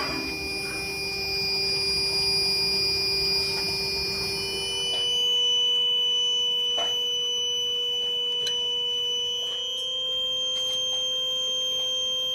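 Steady electronic tones, several pure pitches held together like a sustained synthesizer chord, that change all at once to a different set of pitches about five seconds in. There is a low rumbling hiss under the first half and a few faint clicks in the second.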